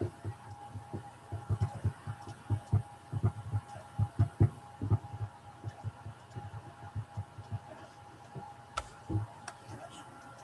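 Irregular dull thumps, many in quick succession over the first five seconds, then sparser, over a faint steady hum; two sharper clicks near the end.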